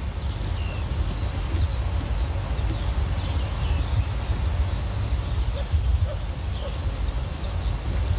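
Outdoor ambience of wind rumbling on the microphone, with small birds calling: scattered high chirps and a short rapid trill about four seconds in.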